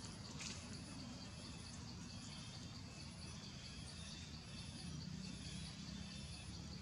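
Faint outdoor ambience: a steady, evenly pulsing insect chirring with a low rumble underneath, and one faint click about half a second in.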